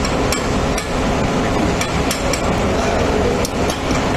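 A string of sharp, irregular metallic taps, about eight or nine in a few seconds, over a steady noisy background hum.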